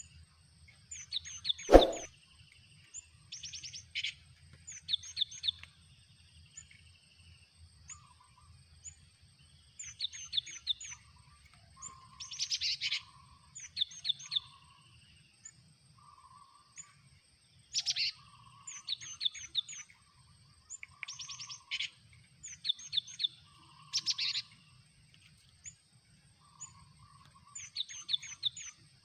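Cinereous tits (gelatik batu) calling: repeated short bursts of rapid, high chirps every second or two, with lower notes in between. A single sharp knock about two seconds in is the loudest sound.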